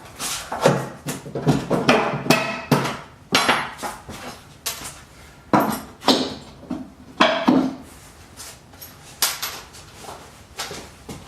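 Hammer striking nails, a loose, uneven run of sharp blows, some with a short metallic ring.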